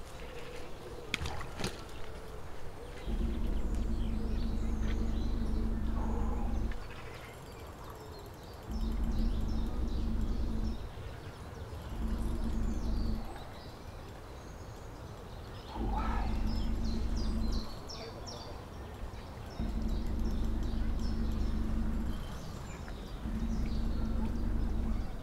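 Carp fishing reel being wound in bursts of about two to four seconds with short pauses between, a low hum, as a hooked carp is pumped and reeled in. Birds chirp throughout.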